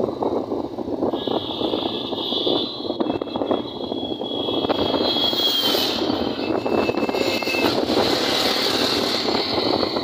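Wind buffeting the microphone and road noise from a moving vehicle, a dense fluttering rush, with a thin high whine from about one to six seconds in.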